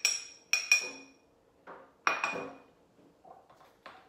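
Metal spoon clinking against a small ceramic bowl as chopped garlic is tapped off into it: three sharp, ringing clinks in the first second and another about two seconds in, then a few fainter knocks.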